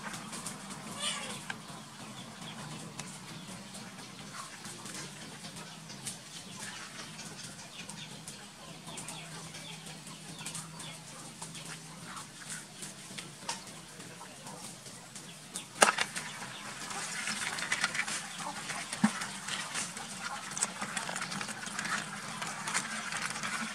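Farmyard ambience with chickens clucking, over a steady low hum and scattered small clicks. About 16 s in there is a sharp knock, followed by a denser run of scratchy clicking and crackling.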